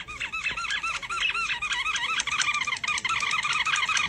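A dog chewing a squeaky rubber toy, making a fast run of short high squeaks that speed up toward the end.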